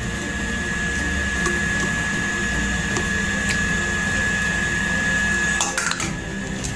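A steady mechanical hum with a thin high whine, under a metal spoon stirring and scraping through puffed rice in a steel bowl, with a few light clicks. Near the end comes a short rattle, and the whine drops out.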